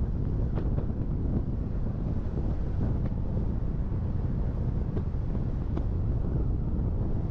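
Steady low rumble of wind buffeting the microphone of a camera mounted outside a semi truck moving at highway speed, with road noise from the truck underneath.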